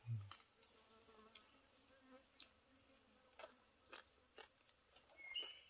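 Faint, steady, high-pitched insect drone in forest undergrowth, with a few soft clicks and a brief high chirp near the end.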